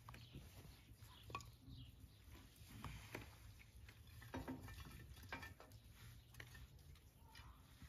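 Faint footsteps in snow, then scattered light knocks and clatters of split firewood being picked up from a pile.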